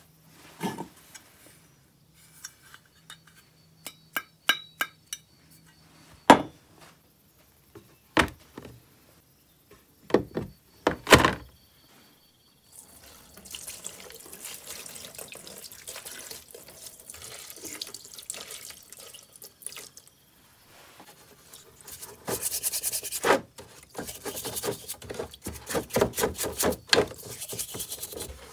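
A few sharp knocks and clicks of parts set down on a workbench. Then, about 13 seconds in, clear liquid poured from a plastic bottle into a plastic tub holding chainsaw crankcase halves. Near the end, a bristle paintbrush scrubbing the crankcase halves in the liquid, splashing.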